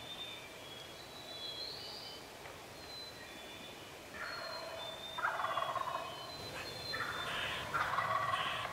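A wild turkey gobbler gobbling twice, first about four seconds in and again near the end, each gobble a loud rattling call. Faint thin songbird notes come before the gobbles.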